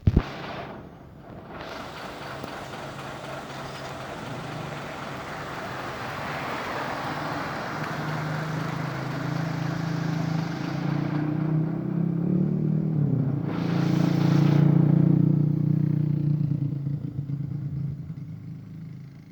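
A truck approaching and passing close by: road and engine noise swells over about ten seconds, the engine's low drone is loudest about three-quarters of the way through with its pitch dipping as it goes by, then it fades away. A sharp knock at the very start.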